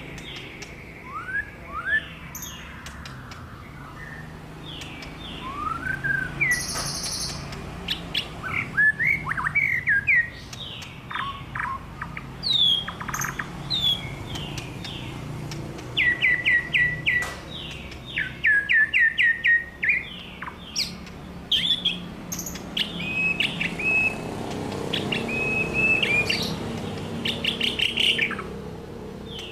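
White-rumped shama (murai batu) singing vigorously: a varied song of clear whistles, rising glides and fast runs of repeated notes, over a low steady background hum.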